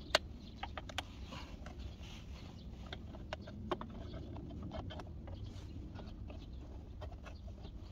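Scattered light clicks and taps of a small spanner and nuts being handled while the scooter's cover is bolted on, with one sharper click just after the start, over a low steady rumble.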